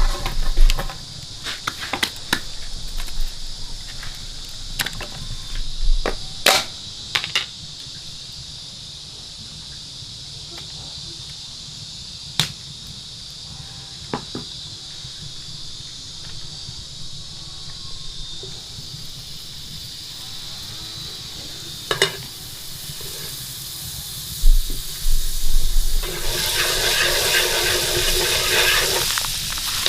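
Scattered knocks and clatters of kitchen work over a steady high hiss. Near the end comes a loud rush of water lasting about three seconds.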